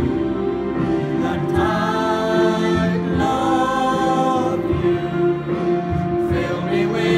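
Small mixed vocal group of three women and two men singing a Christian worship song together, voices holding and moving between notes.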